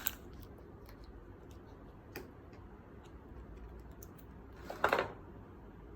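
Faint scattered small ticks and clicks of handling noise, with one brief louder rustle about five seconds in.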